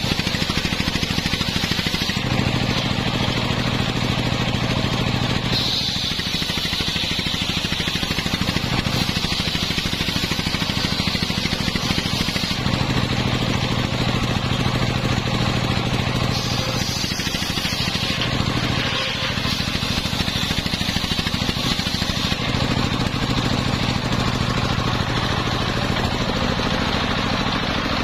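Stationary single-cylinder diesel engine running steadily, belt-driving a large homemade circular saw that rips a coconut-palm log into planks. The sound rises and falls several times as the blade goes into and out of the wood.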